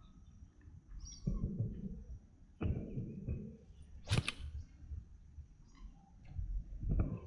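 Bumps and rustles of fishing gear being handled close to the microphone, with one short, sharp swish about four seconds in, like a rod whipped through a cast.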